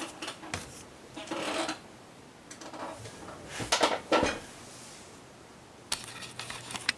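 Handling noise as a butane torch and a can of butane are moved and set down on a work surface: rubbing and scraping, with a cluster of knocks about four seconds in, the loudest moment, and a few light clicks near the end.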